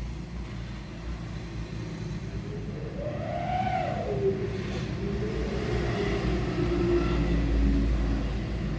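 A car engine running with a steady low rumble, and a tone that rises and falls about three seconds in.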